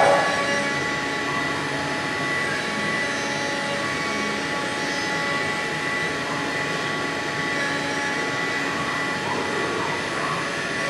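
MillStep PAX6050V2 CNC milling machine cutting a plastic block: the spindle whines steadily as the end mill cuts a pocket, over a steady hiss.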